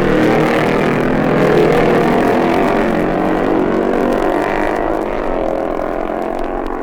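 Two racing motorcycles running hard as they pass, their overlapping engine notes shifting in pitch, on an old track-side race recording.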